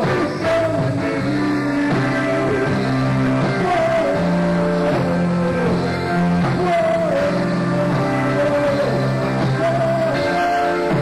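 Live band playing with vocalists singing over it, bass and drums under the voices.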